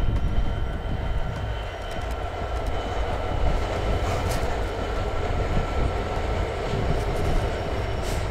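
GBRf Class 66 diesel freight locomotive, with its EMD two-stroke V12 engine, running past with a steady low rumble. Its train of empty box wagons rolls by behind it, with a rising rushing noise and a few sharp clicks from the wheels on the track.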